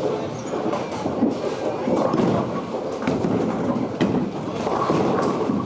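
Bowling alley din: bowling balls rolling along the wooden lanes and pins clattering, with a few sharp knocks about three and four seconds in.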